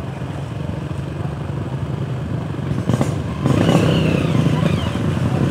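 Several off-road motorcycles' engines running at low speed as the bikes pick their way through mud, growing louder about three and a half seconds in as they come closer.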